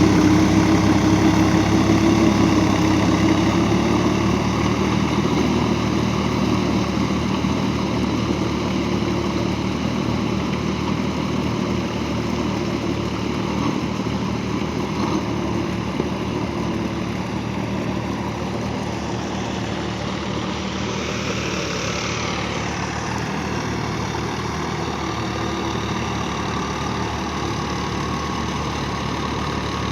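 Farm tractor engine running steadily, easing slightly in loudness over the first few seconds. About twenty seconds in, its pitch briefly rises and falls again.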